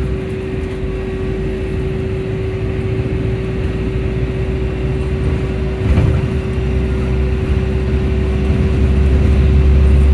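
Volvo B5L hybrid bus running with a steady whine held throughout, over running noise, with a short knock about six seconds in. A heavy low rumble is weaker for most of the stretch and builds back up near the end.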